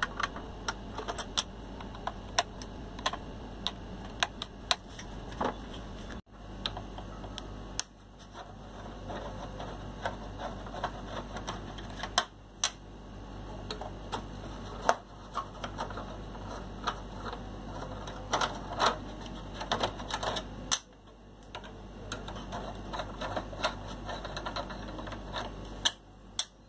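Irregular small metallic clicks and taps of a screwdriver and screws being undone from a voltage stabilizer's relay mounting, over a steady low hum.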